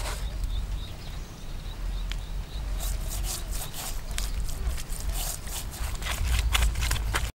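Fingers rubbing and scraping over the scaly skin of a split fish, a quick run of short rasping strokes starting about three seconds in, over a steady low rumble.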